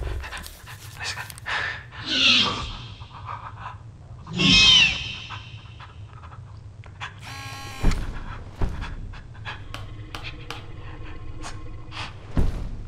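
Two loud, shrill velociraptor calls, about two seconds apart, each bending in pitch, over a person's fast, heavy panting. In the second half, a short buzz and a few dull thumps.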